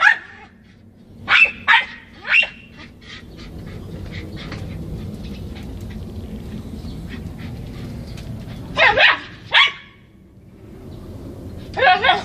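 Small dog barking in short sharp barks: three about a second and a half in, a pair about nine seconds in, and another pair near the end.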